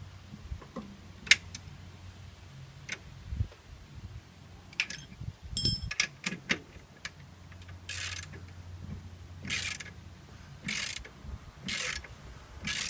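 Scattered metal clicks and clinks of tools on parts, then a ratchet wrench worked in short strokes: five rasping runs of ratchet clicks about a second apart.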